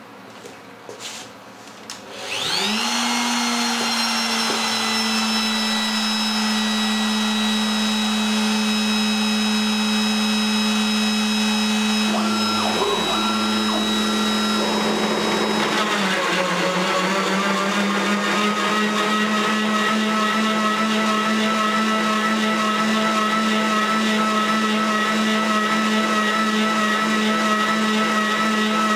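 Kress spindle motor of a DIY CNC mill spinning up about two seconds in and running with a steady high whine. After about sixteen seconds the sound turns denser and buzzier as its 8 mm three-flute carbide end mill starts side-milling aluminium.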